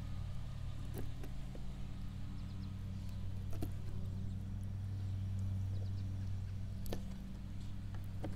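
A steady low hum, with a few faint clicks and taps of a small knife cutting through chicken liver against a plastic table.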